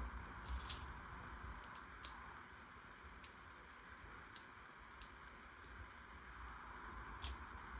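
Plastic LEGO Technic pieces clicking and tapping as they are handled and pushed into place: a few sharp, irregular clicks over a faint steady hiss.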